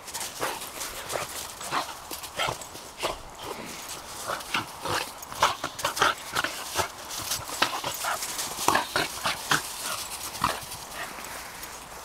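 Small dogs at rough play, giving short yaps and yelps over scuffling and rustling in the grass.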